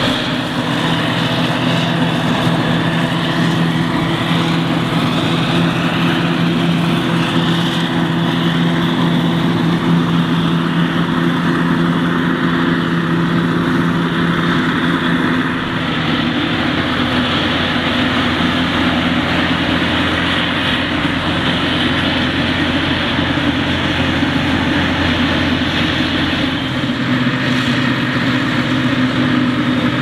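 Claas Jaguar 950 self-propelled forage harvester chopping maize. Its engine runs steadily under load over a rushing noise from the chopper and spout, with a hauling tractor running alongside. The mix shifts slightly about halfway through.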